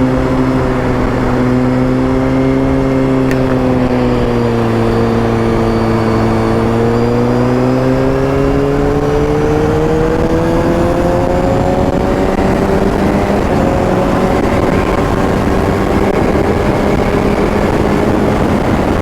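Kawasaki ZX-6R inline-four engine running under way, its pitch dipping slightly and then rising steadily as the motorcycle accelerates, with constant wind rush on the microphone that grows to cover the engine in the second half.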